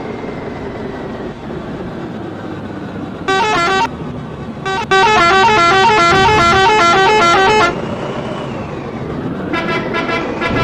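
Telolet horn: a multi-tone musical vehicle horn playing a quick melody of alternating notes. A short blast comes a few seconds in, a longer run of about three seconds follows in the middle, and another burst comes near the end, over steady background noise.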